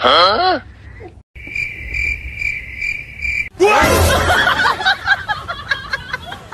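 Cricket-chirping sound effect: a steady high chirp pulsing about twice a second for about two seconds, the meme cue for awkward silence. It is preceded by a quick swooping sound and followed by a loud, busy jumble of mixed sound.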